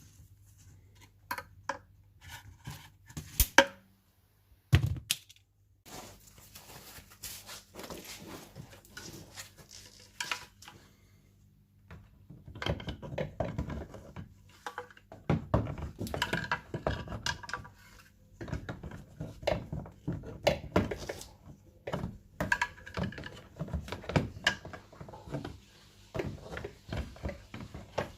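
Tools and parts being handled during hands-on car repair work: a long series of knocks, clicks and clatters. Two sharp louder thunks come a few seconds in, and the handling grows busier about halfway through.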